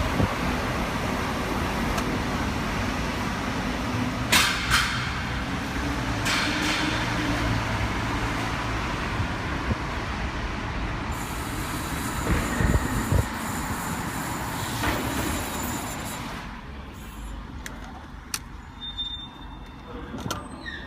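A 2014 Mazda3 on the move: steady road and running noise, with a few brief sharp noises about four and six seconds in and again around twelve to fifteen seconds. It grows quieter from about three-quarters of the way through.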